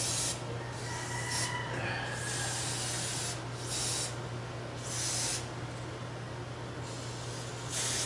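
Aerosol lubricant spray can hissing in a series of short squirts, about six, one of them about a second long. The spray is being worked into a seized twin-tub washing machine to free it.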